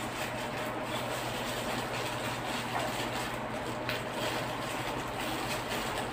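Steady low hum and hiss of room noise, with faint rustling of plastic packaging and cables being handled.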